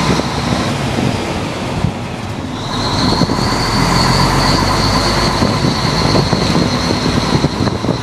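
Fire truck's engine running as it drives, with road and wind noise rushing past. A steady high-pitched whine comes in about three seconds in and holds.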